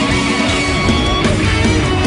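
Rock music with electric guitar, playing steadily at full level.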